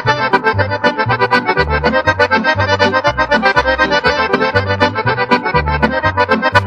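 Accordion playing a fast Serbian kolo dance tune: quick runs of notes in the treble over a steady, bouncing bass line.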